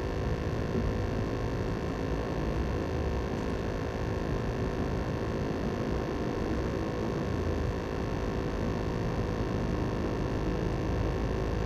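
Steady background noise with a faint low hum, unchanging throughout, with no distinct knocks or calls.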